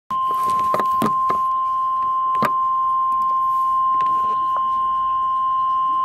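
NOAA Weather Radio 1050 Hz warning alarm tone: one loud, steady, unbroken beep, the signal that a warning, here a tornado warning, is being broadcast. A few sharp clicks of static crackle over it in the first couple of seconds.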